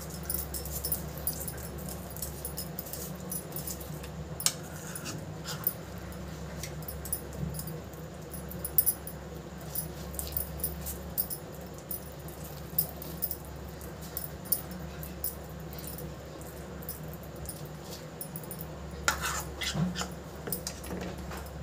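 Metal spoon scraping and tapping against a pizza base and plate while spreading pizza sauce, in short irregular clicks and scrapes with a cluster of louder ones near the end, over a steady low hum.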